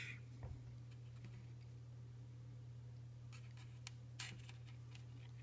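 Faint clicks and scratches of jumper wires being pushed into a solderless breadboard, a few around three to four and a half seconds in, over a low steady hum.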